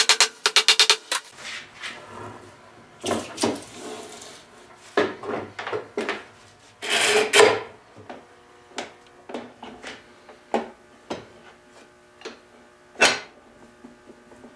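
A hammer taps rapidly on dowel pins in the edge of a walnut table top, ending about a second in. Then come scattered wooden knocks, clunks and a scraping rub as bar clamps and wood blocks are set across the top, with a sharp knock near the end.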